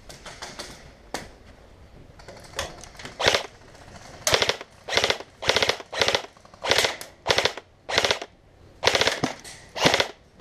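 Airsoft electric rifle (a JG G3) firing about ten short bursts of rapid shots, starting a couple of seconds in, with a few fainter shots before them.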